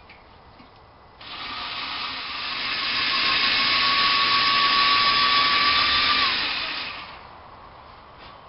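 Power drill running with a large bit for about six seconds, with a steady high whine that drops in pitch just before the drill stops. The bit is too big to cut the hole straight away.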